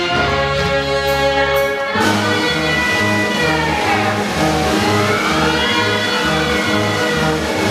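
Circus band music: held chords, then from about two seconds in a steady bass beat under a melody that rises and falls.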